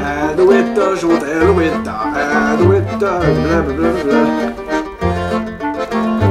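Background music: a French café-style tune with an accordion melody over steady, repeating bass notes.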